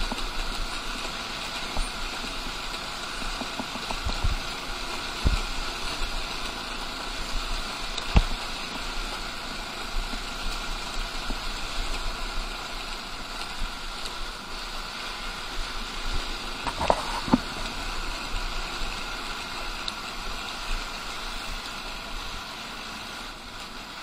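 Motorcycle engine running steadily under way on an uphill climb, with road and wind noise. A few sharp knocks sound about four, five and eight seconds in, and twice in quick succession about seventeen seconds in.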